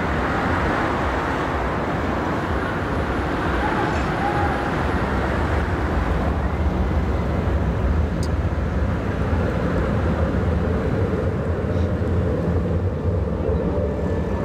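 Grenoble tram approaching on street track and drawing alongside, its running noise steady with a low hum. A steady whine comes in during the last few seconds as it passes close.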